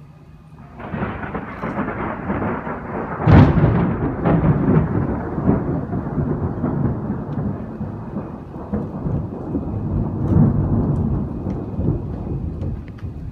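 Thunder: a roll begins about a second in, breaks into a sharp crack a couple of seconds later, then rumbles on, swelling again and dying away near the end.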